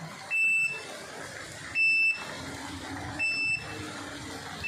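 Steady rain hiss with a high electronic beep over it, sounding four times at even spacing, about once every second and a half.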